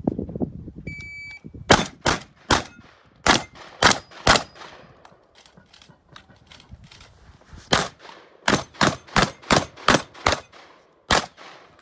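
A shot timer's short start beep, then rapid shots from a Benelli M2 semi-automatic shotgun: six quick shots, a pause of about three seconds, then eight more in a fast string.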